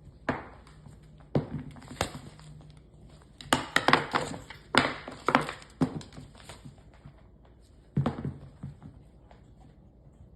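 Irregular sharp knocks and taps, bunched in quick clusters around the middle, with a last few about eight seconds in.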